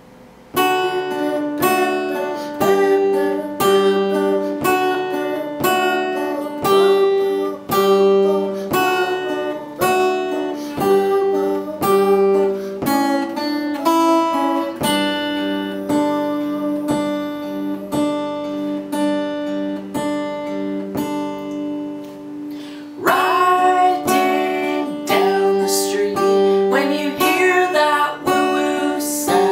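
Epiphone acoustic guitar strummed in a steady rhythm, about two strums a second. About 23 seconds in, the music gets louder and a man's singing voice comes in over the guitar.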